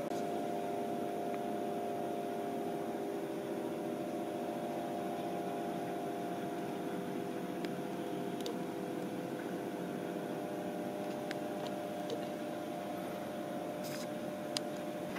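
Steady hum with several held tones, easing off slightly over its length, and a few light clicks near the end.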